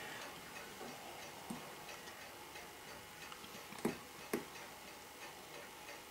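Faint, irregular small metallic clicks of a fine steel screwdriver working on a Seiko 6217 automatic watch movement held in a movement holder, with a couple of sharper clicks about four seconds in.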